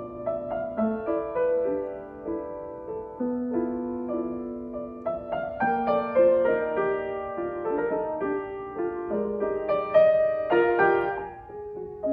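Solo piano playing a gentle classical piece: a flowing line of notes over held chords, growing busier and climbing higher in the second half, then thinning out near the end.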